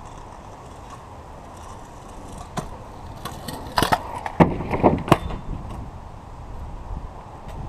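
Kick scooter wheels rolling, then a cluster of sharp clacks and knocks about three to five seconds in as the scooter hits the plywood wall ride.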